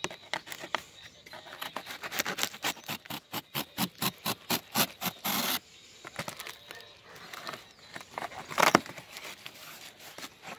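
Utility knife sawing through packing tape and corrugated cardboard on a shipping box: a quick run of short scratchy strokes, about five a second, for the first five seconds. A few lighter cuts follow, with one louder scrape or tear toward the end.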